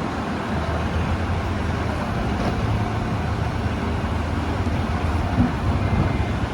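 Backhoe's diesel engine running steadily with a low rumble, with a brief knock about five seconds in.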